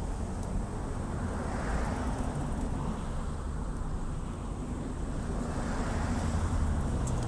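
Road traffic going by: a steady rumble with two vehicles swelling past, one about two seconds in and another near the end.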